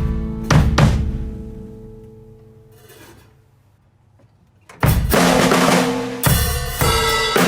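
Drum kit with a Peace snare drum being played: two heavy hits ring out and die away to a short quiet gap. A little under five seconds in, loud full-kit playing starts again.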